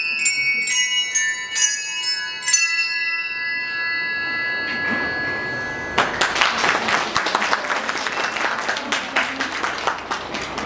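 Handbell ensemble striking the last notes of a piece, the final chord ringing on and slowly fading. About six seconds in, audience applause starts and continues.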